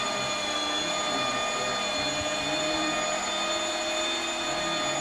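Electric motor running steadily with a constant high whine, and a lower hum that wavers slightly.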